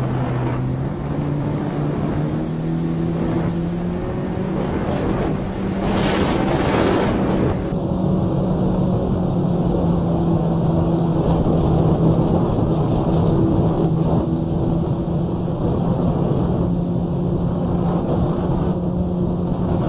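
Personal watercraft (jet ski) engine running, with water and spray rushing past the hull and a brief surge of rushing noise about six seconds in, under background music with held bass notes that step from pitch to pitch.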